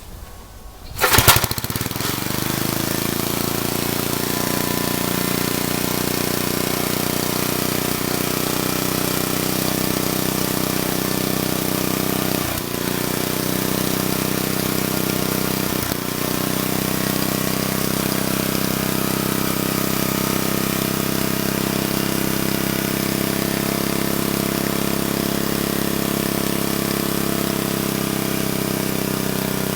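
Old Troy-Bilt Horse tiller's Briggs & Stratton single-cylinder engine starting about a second in and then running steadily, with two brief stumbles near the middle. It is a freshly adjusted carburetor on an engine that still pops some.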